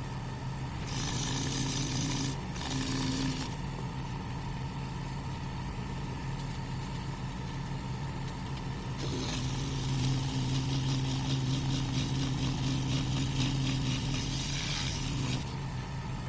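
Wood lathe running with a steady motor hum while a pine bowl spins on it. Three spells of loud, high hiss from the wood being worked: one about a second in, lasting over a second, a shorter one just after, and a longer one of about six seconds in the second half.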